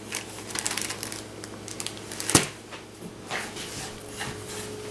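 Hands handling flour-dusted bread dough, with soft rustles and pats, and one sharp knock a little over two seconds in.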